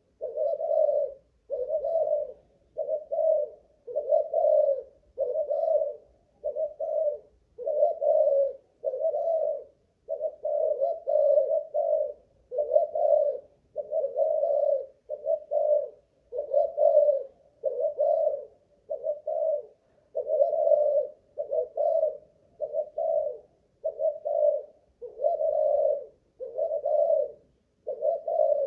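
Malaysian-strain spotted dove cooing without a break, a steady run of short low coos about one a second. It is a long calling bout of the kind kept by dove fanciers to test the bird's stamina.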